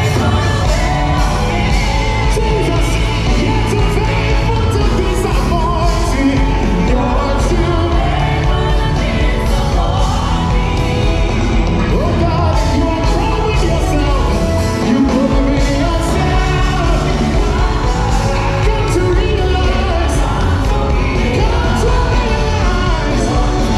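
Live gospel worship song: several singers with a full band, loud and unbroken, heard through the hall's PA system.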